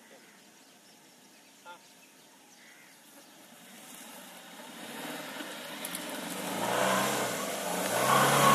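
Suzuki Grand Vitara 2.0-litre petrol engine revving under load as the 4x4 drives up a loose dirt slope. The revs rise and drop several times. It is faint at first and grows steadily louder from about halfway through.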